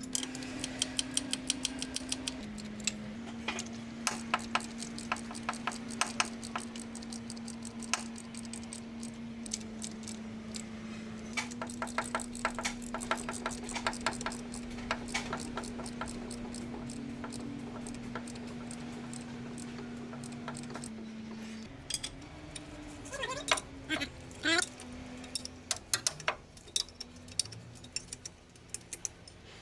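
Background music with a held tone that shifts pitch a few times, over repeated metallic clinks and short runs of rapid clicking from hand tools on a truck differential.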